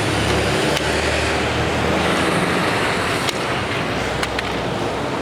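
Steady road traffic noise, cars and other vehicles passing with a low rumble, and a few faint clicks.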